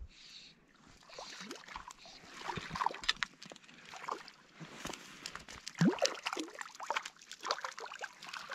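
Small brook trout splashing in shallow lake water as it is brought to a landing net, with irregular sloshes and drips.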